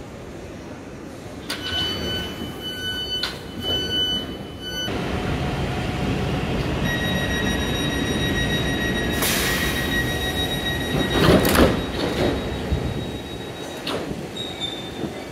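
Electric commuter train's sliding passenger doors closing: steady electronic door warning tones sound, then a hiss of air and a loud bang as the doors shut, about eleven seconds in, over the train's steady rumble.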